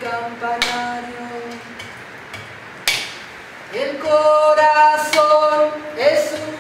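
A woman singing long held notes unaccompanied, sliding up into a higher note about four seconds in and again near the end. A few sharp knocks sound in between.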